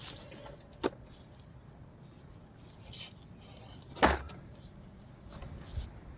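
Knocks of wood being handled and fitted: a sharp knock about a second in and a louder one with a dull thump about four seconds in, with faint clicks and rustling between.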